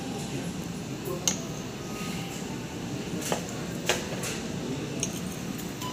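Knives and forks clinking and scraping on cast-iron steak plates as hamburg steaks are cut, with a few sharp clinks over a low background hum.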